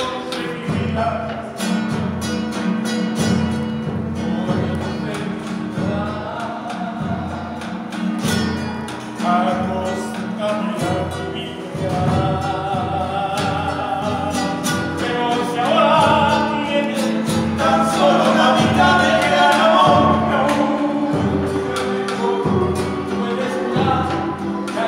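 Live acoustic guitar and a large bass drum beaten with a stick at a steady beat, with a man singing over them; the singing is strongest in the second half.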